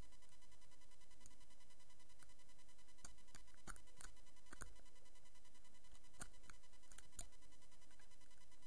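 Faint, sparse metallic clicks and scrapes of lock picks working inside an MCM lock cylinder, about ten of them between about three and seven seconds in, over a steady electrical hum.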